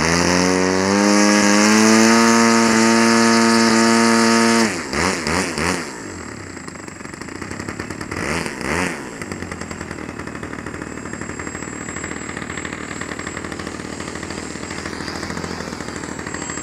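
Electric motor and propeller of an RC model Tiger Moth biplane whining as it taxis, rising in pitch and then holding steady for about four and a half seconds before cutting off. A few short throttle blips follow, three in quick succession and then two more.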